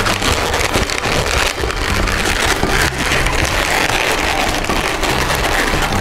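Upbeat electronic background music with a steady bass line, over the squeak and rub of latex modelling balloons being twisted by hand.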